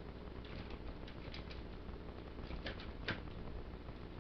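Small clicks and taps of a plastic robot toy's joints being moved by hand through its transformation, with one sharper snap about three seconds in, over a low steady hum.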